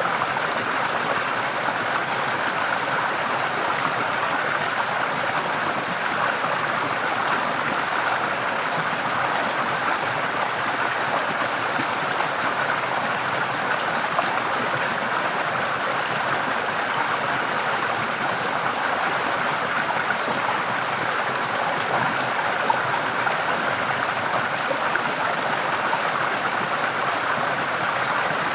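Forest stream running, a steady rush and babble of water over rocks.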